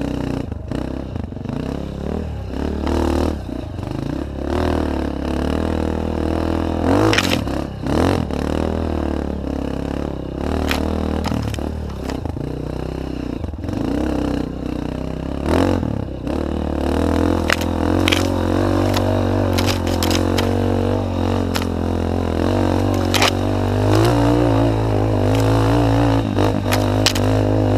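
Off-road trail motorcycle engine running and revving up and down as it rides, with frequent knocks and clattering from the bike over rough ground. The engine note climbs about two-thirds of the way through and again near the end.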